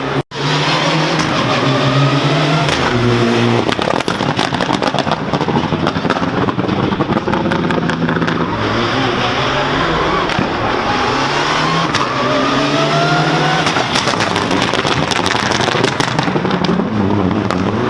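Rally car engine at full throttle, its pitch climbing repeatedly as it accelerates and dropping between gear changes. Rapid pops and crackles from the exhaust run through the middle of the passage.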